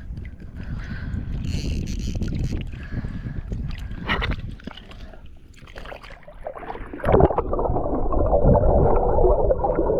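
Water sloshing and gurgling, heard underwater, with scattered clicks; about seven seconds in it turns louder and more muffled.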